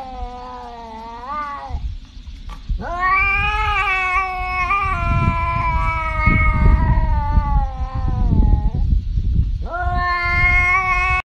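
A tabby cat yowling in long, drawn-out calls. One trails off about two seconds in, a second lasts about six seconds, and a third near the end cuts off abruptly.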